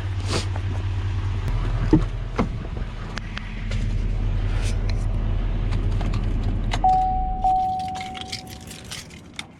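Idling truck engine with clicks and knocks at the vehicle, shut off about seven and a half seconds in. A steady electronic warning chime sounds for about two seconds around the shutdown.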